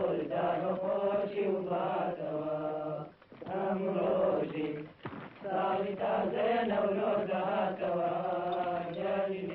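Voices chanting over a held low drone, in long sung phrases with two short breaks, about three and five seconds in.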